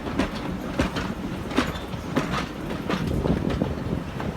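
Heritage railway train running on the track: a steady low rumble with irregular clicks and clacks from the wheels over the rail joints.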